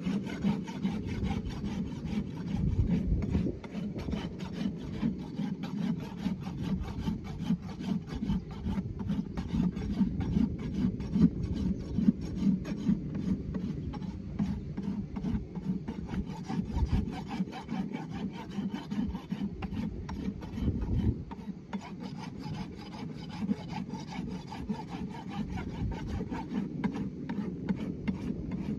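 Farrier's hoof rasp filing a horse's hoof wall in continuous back-and-forth strokes.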